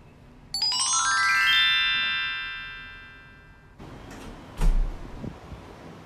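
A rising run of bright bell-like chime tones starts suddenly about half a second in, then rings and fades away over about three seconds; it is an edited-in transition sound effect. Near the end there is a dull thump, followed by a couple of lighter knocks.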